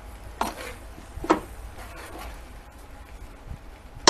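A metal spoon stirring and scraping through ground meat in an enamel pot, with two short scrapes against the pot in the first second and a half, then fainter stirring.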